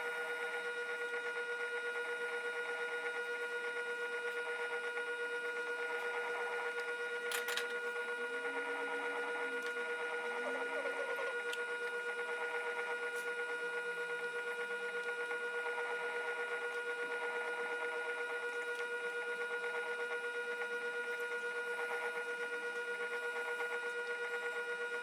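Electric pottery wheel running at a steady speed, its motor giving a constant whir, while a loop trimming tool scrapes leather-hard clay from the foot of a bowl turning on the wheel. A single sharp click about seven seconds in.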